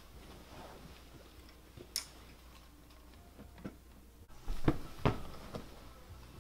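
A person moving about on a sofa, with cushion and clothing rustles, a sharp click about two seconds in, and two quick thumps close together past the middle as the body flips over onto the cushions.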